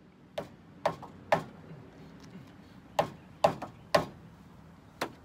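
A series of sharp knocks and taps, about seven, unevenly spaced with short gaps, from gloved hands handling parts in a pickup's engine bay.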